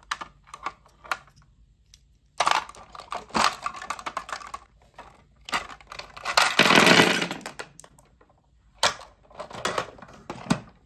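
Glass marbles and small plastic toy cars clicking and rattling against each other in the plastic bed of a toy dump truck. There are scattered clicks, then a stretch of dense rattling, and about six and a half seconds in a longer, louder clatter.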